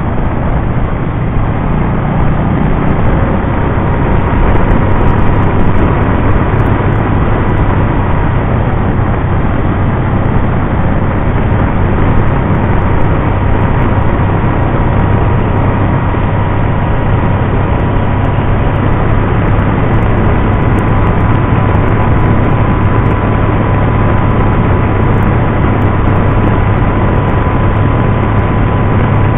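Can-Am Spyder RT three-wheeled motorcycle cruising at road speed: a steady engine drone mixed with wind and road noise, with a faint steady whine throughout.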